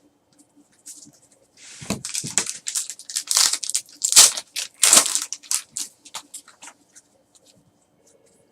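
Foil trading-card pack wrapper being torn open and crinkled: a run of sharp rustling tears starting about two seconds in and dying away near seven seconds.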